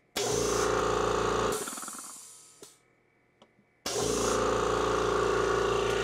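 Kobalt Quiet Tech air compressor's electric motor and pump starting abruptly, running steadily for about a second and a half, then winding down. After two faint clicks it starts again a little before four seconds in and keeps running. The motor starts up without stalling when switched back on mid-cycle, because the electric unloader valve has vented the pressure between pump and check valve.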